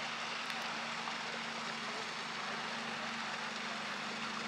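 A steady low motor hum over an even wash of noise, unchanging in level.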